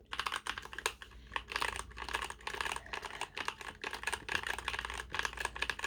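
Typing on a computer keyboard: a fast, irregular run of key clicks.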